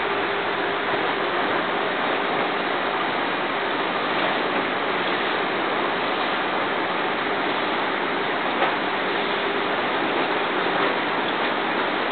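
Steady rush of air bubbles from aquarium airstones rising and breaking at the water surface, with a faint steady hum underneath.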